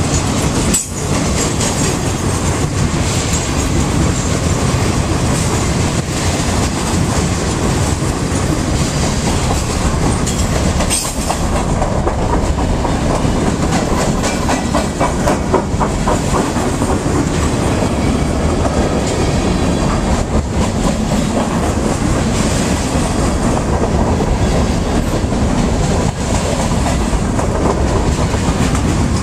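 Freight train cars (boxcars and covered hoppers) rolling past close by: a steady loud rumble of wheels on rail with repeated clicks as the wheels pass.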